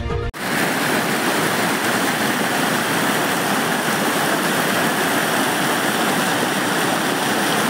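Floodwater rushing steadily, a constant even noise, with a brief tail of music cut off at the very start.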